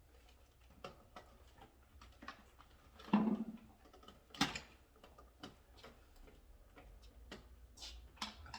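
Scattered light clicks and taps from tools and parts being handled during electrical wiring work, with a louder knock about three seconds in and a sharp click about a second later.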